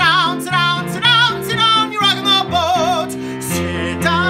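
A man singing a musical-theatre show tune with wide vibrato on held notes, over a recorded instrumental accompaniment.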